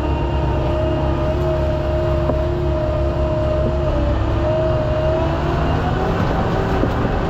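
Tractor engine running steadily under load, with a constant whine that wavers slightly in pitch.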